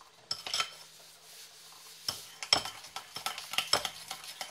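A metal spoon stirring a runny paste of boric powder, sugar and water in a ceramic bowl, clinking and scraping against the bowl several times a second from about two seconds in. A few lighter clinks come before it.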